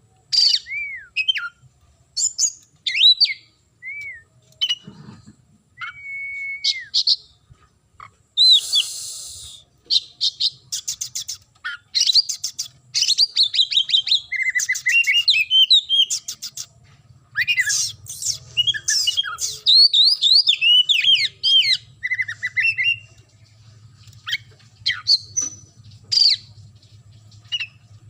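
Oriental magpie-robin (kacer) singing in full voice: a varied, continuous song of clear whistled notes and slurred glides, fast rattling trills, and a harsh rasping note about eight seconds in.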